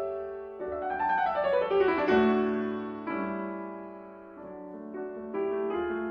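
Background piano music: a solo piano playing a slow melody with chords, with a quick run of notes falling in pitch about a second in.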